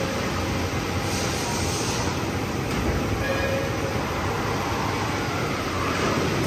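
Steady machine-shop noise from running machinery as an industrial robot arm tends a CNC lathe: a continuous rumble and hiss, with a couple of brief faint tones.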